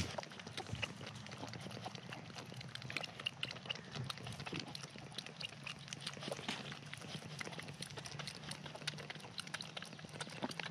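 Bottle-baby goat kid suckling milk from a bottle nipple: a quick, irregular run of small wet sucking clicks and smacks.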